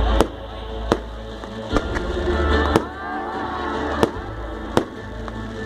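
A series of sharp bangs or cracks, roughly one a second at uneven spacing, over a steady low rumble.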